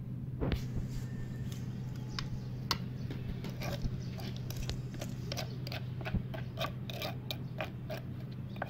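Metal spoon clicking and scraping against a clay mortar and a ceramic dish while scooping thick chili paste, a few sharp clicks a second, busiest in the second half.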